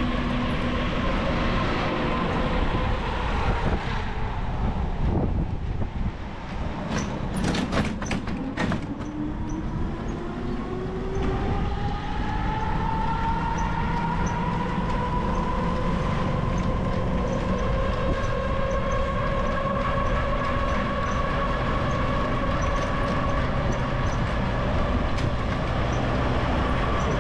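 Road vehicle in motion: a steady rumble and rattle from the ride, a quick clatter of knocks about eight seconds in, then a motor whine that climbs slowly in pitch over about ten seconds as the vehicle gathers speed, and holds there.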